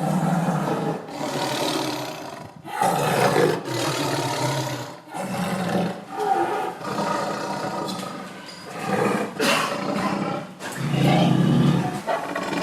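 Tiger roaring angrily: a string of rough, loud roars of a second or more each, one after another with short breaks between them.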